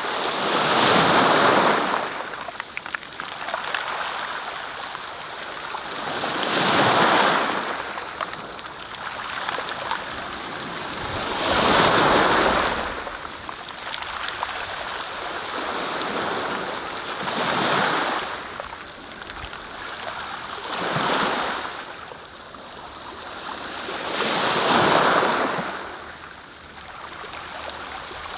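Waves washing in: a rushing swell that rises and falls about every five seconds, six times over.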